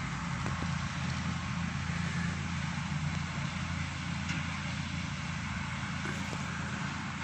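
Steady outdoor background noise with a low, even hum underneath and no distinct events.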